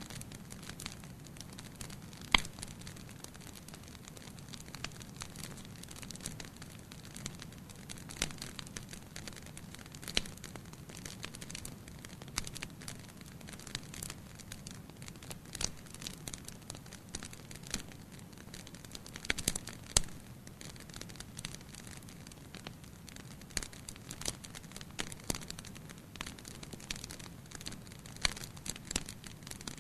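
Wood fire burning in a fireplace: a steady low hiss of flames with irregular crackles and snaps throughout, and a few sharper, louder pops, one about two seconds in and a cluster about two-thirds of the way through.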